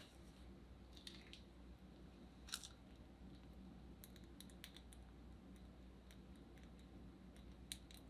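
Near silence, with faint scattered crinkles and ticks from a plastic piping bag being squeezed to pipe spackle into a clear plastic cup; the strongest tick comes about two and a half seconds in.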